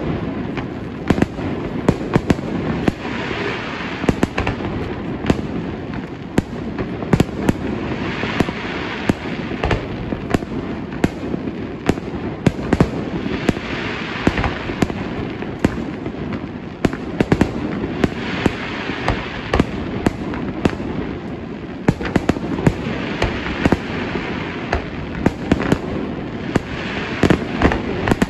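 Fireworks display: many sharp bangs of bursting shells in quick, irregular succession over a continuous low rumble, with a hissing rush swelling about every five seconds.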